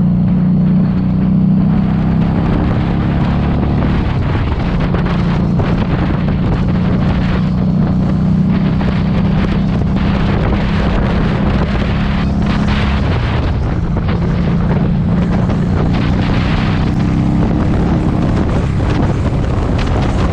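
Harley-Davidson Street 500's liquid-cooled V-twin running through a TAB Performance exhaust at riding speed, buried under heavy wind noise on the microphone. The engine note drops briefly about four seconds in and again around thirteen seconds, then picks back up.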